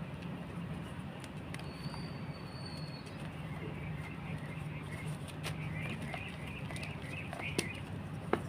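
Gym chalk being crushed by hand, with scattered faint crunching clicks and two sharper snaps near the end. Birds chirp in the background over a steady low hum.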